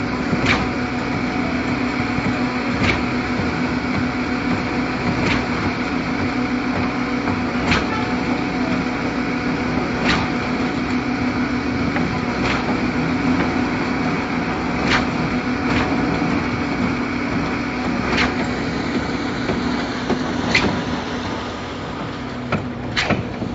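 Concrete mixer pump running steadily under power, its engine and hydraulics giving a continuous drone with a strong hum. A sharp knock comes about every two and a half seconds as the pumping cylinders change stroke.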